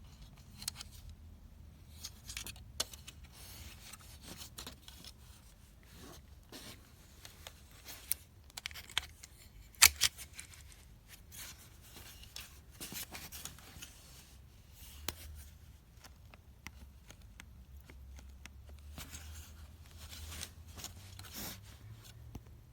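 Rustling, rubbing and scattered light clicks of things being handled, with one sharp click about ten seconds in.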